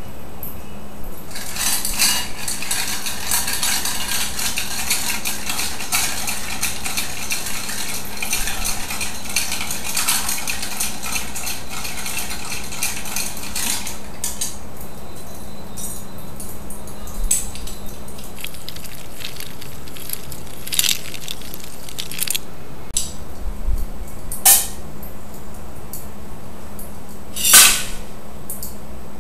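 Ice clinking against a mixing glass as a bar spoon stirs a gin and dry vermouth Gibson cocktail: a dense run of quick clinks for about twelve seconds, then scattered clinks and two louder knocks near the end. A steady low hum runs underneath.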